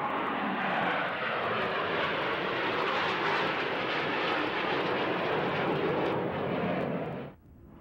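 Jet engine noise from a formation of six jet aircraft flying overhead with smoke on, a steady rush of sound that cuts off abruptly near the end.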